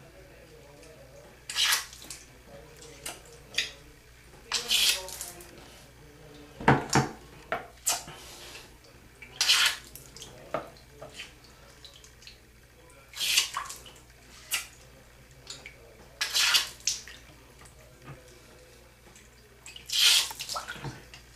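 Water splashing into a sink in about a dozen short spurts at irregular intervals, from flushing wax out of an ear.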